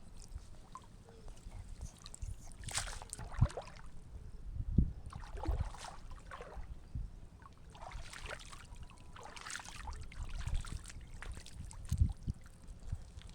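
Pond water splashing and sloshing in several separate bursts, each a second or so long, with a few low thumps in between, as a fishing net is worked through the water.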